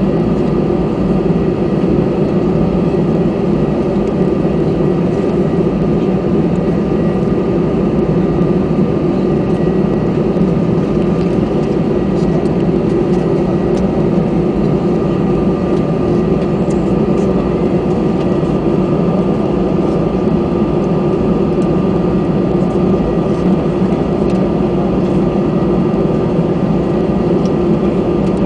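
Cabin noise inside an Airbus A319 taxiing: the engines run at low taxi thrust, giving a steady hum with a thin constant whine and no build-up of power.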